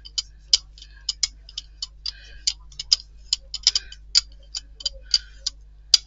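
Brayer rolling black paint out over a Gelli Plate, the tacky paint giving off irregular crisp ticks and crackles, several a second, as the roller moves back and forth.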